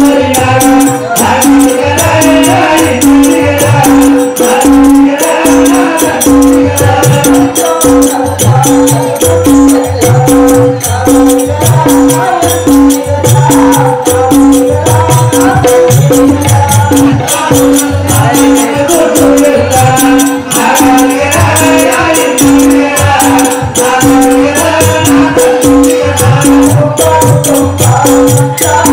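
Live folk-theatre music: a steady drum beat with jingling percussion under a held drone note, and a voice singing over it.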